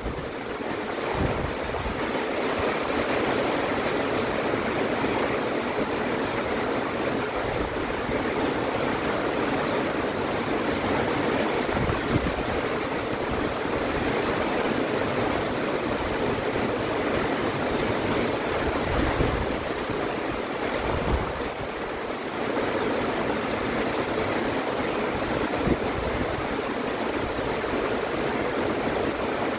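Heavy rain pouring steadily, a dense even hiss, with occasional low rumbles of wind buffeting the microphone.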